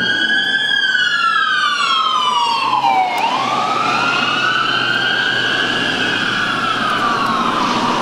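Emergency vehicle siren wailing on the road, its pitch rising and falling slowly, twice over.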